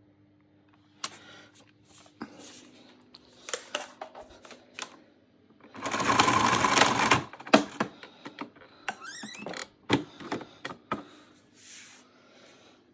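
Scattered clicks and knocks of a vacuum cleaner being handled with its motor off. Midway there is a loud rushing rattle lasting about a second and a half.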